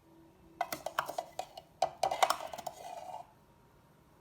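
A metal spoon clicking and scraping against a moka pot's metal filter basket as ground coffee is scooped in: a run of quick knocks, then a short rough scrape ending about three seconds in.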